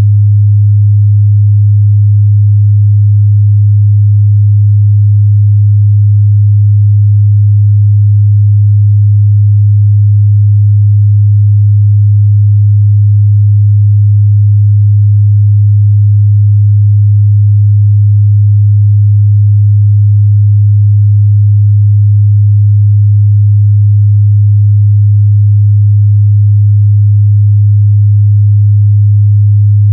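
Steady 103 Hz sine-wave test tone, a single low hum held at constant pitch and level, used to check the mid-bass response of speakers and headphones.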